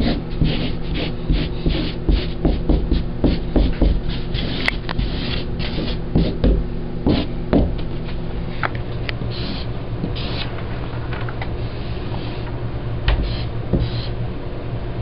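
Someone writing on a wall by hand: quick, irregular scratchy strokes, dense for about the first eight seconds and then fewer and further apart.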